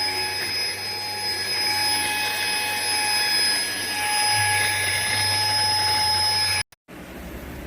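Deerma EX919 handheld dust mite vacuum running, a steady motor whine with several high tones over a rush of airflow. It stops abruptly near the end and is replaced by a quieter steady hum.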